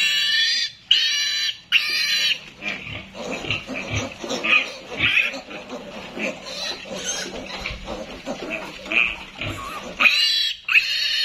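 Piglet squealing loudly in repeated bursts while held down and castrated with a blade, a sign of its distress and pain. Through the middle the squeals drop to softer, broken cries before loud squeals return near the end.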